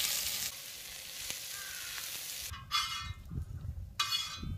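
Chopped onions sizzling as they hit hot oil in a large metal pan, loudest at first and then settling to a quieter frying hiss. After about two and a half seconds, a metal spatula scrapes across the pan in two short strokes.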